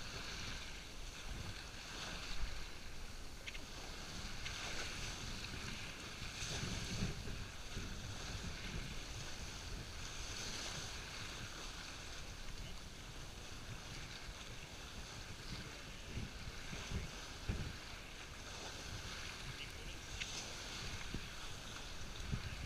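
Water rushing and splashing along the hull of a Mascot 28 sailboat under sail, the bow wave surging and easing every second or two. Wind rumbles on the microphone underneath.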